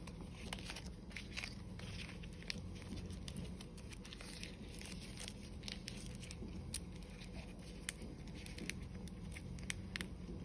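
Fresh pandan leaves being folded and knotted by hand: faint, scattered crackles and small snaps of the leaves, over a steady low background hum.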